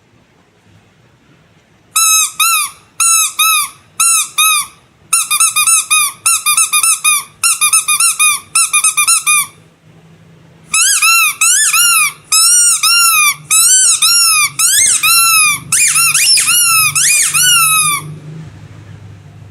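Squeaky rubber animal toy squeezed over and over, each squeak a short whistle that rises and falls in pitch. The squeezing starts about two seconds in, comes in quick clusters, pauses briefly near the middle, then goes on faster and denser until it stops near the end.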